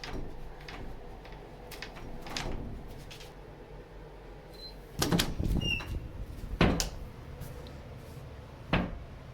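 A door handle rattling and the door knocking in its frame: light clicks at first, then a burst of loud rattling about five seconds in, the loudest knock nearly seven seconds in, and one more shortly before the end.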